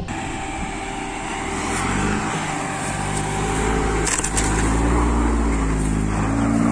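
Ford Ka's engine running under load on a steep dirt climb, its note rising about two seconds in and again near the middle, over a steady hiss of tyre and wind noise.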